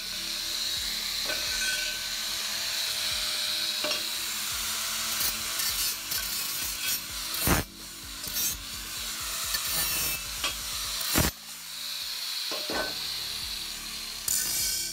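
A 4.5-inch angle grinder with a cutoff wheel cutting steel square tubing: a steady high whine over a harsh, hissing grind. Two sharp metal clanks come about 7.5 and 11 seconds in, and the grinding stops suddenly at the very end.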